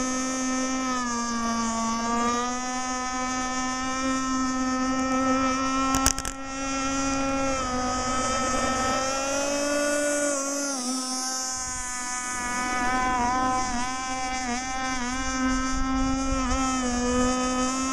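Small gasoline two-stroke engine of a radio-controlled gas mono-hull racing boat running at high revs as a steady high-pitched whine. There is a sharp knock about six seconds in. The pitch dips and recovers a little after ten seconds, then wavers quickly several times near the end.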